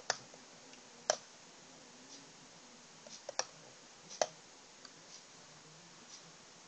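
Sharp clicks of a computer pointer button, four loud ones spread over the first four seconds or so, with a few fainter ticks between and after.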